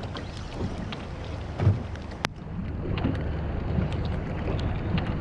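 Steady low rumble of wind on the microphone aboard a small boat, with light rain ticking on the camera. A low thump about one and a half seconds in and a sharp click just after two seconds stand out.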